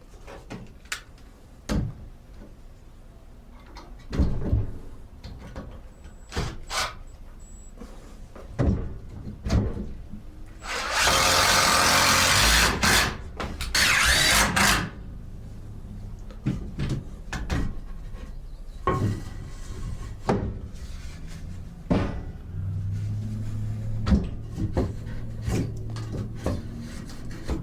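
Woodworking shop handling sounds: scattered knocks and clatter of wooden parts and tools. Near the middle come two loud hissing bursts, one of about two seconds and a shorter one just after.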